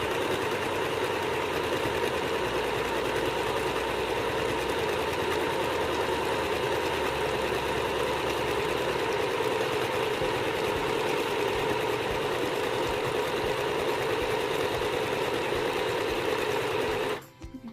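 Mini electric sewing machine running continuously as it stitches fabric in a straight stitch, then stopping suddenly near the end.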